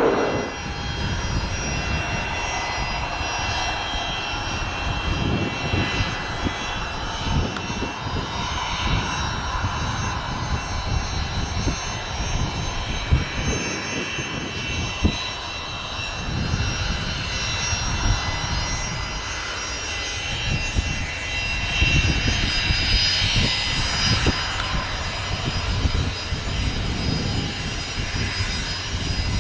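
Business jet turbofan engines running at low power on the ground: a steady high-pitched whine over an uneven low rumble.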